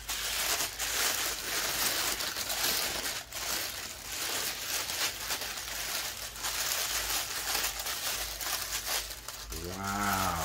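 Packaging crinkling and rustling with many small clicks as a product box is unwrapped and opened by hand. A short hummed voice sound comes near the end.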